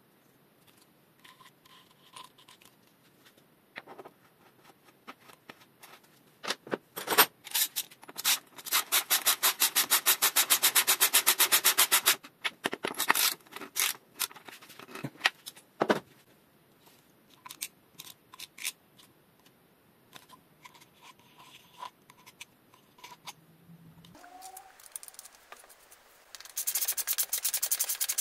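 Ratchet wrench clicking rapidly as it turns a splined tool to screw a cartridge bottom bracket into the frame's threaded shell. It comes in two long runs, with scattered single clicks and taps of tool handling between.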